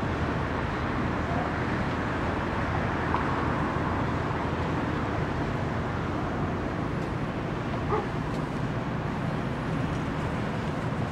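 Motor barge's diesel engine running with a steady low rumble as the barge creeps forward, over a noisy background haze. A brief high cry sounds about eight seconds in.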